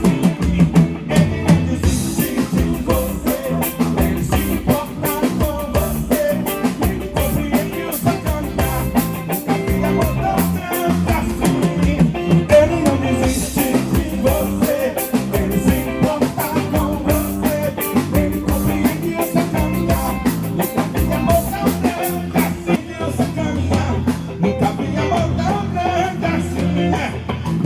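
Live band playing an instrumental stretch of a gospel worship song: drum kit, electric guitar and bass, with some singing at times.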